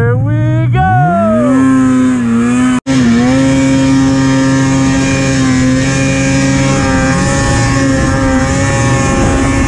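Snowmobile engine revving up sharply, easing off, then holding a steady high rev as the sled runs through deep powder. The sound cuts out for an instant about three seconds in, then carries on at the same steady pitch.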